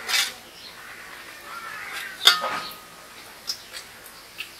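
A metal serving spoon clinking and scraping against a metal cooking pot and plates as curry is dished out: a few sharp clinks, the loudest about two seconds in.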